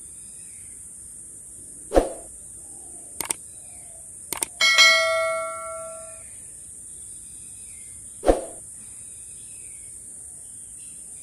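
Subscribe-button animation sound effects: a pop about two seconds in, two quick double mouse clicks, then a notification bell ding that rings out for over a second, and another pop near the end. A steady high insect buzz runs underneath.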